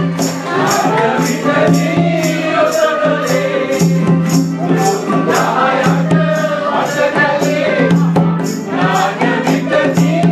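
Live group singing, accompanied by acoustic guitar and electronic keyboard, over a steady shaken-percussion beat of about two to three strokes a second.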